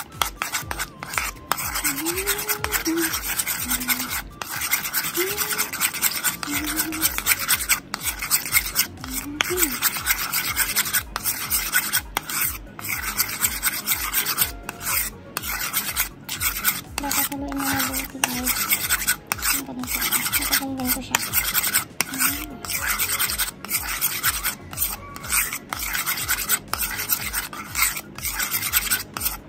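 Metal spoon scraping round a ceramic bowl while stirring a thick mayonnaise sauce, a steady run of quick, rasping strokes.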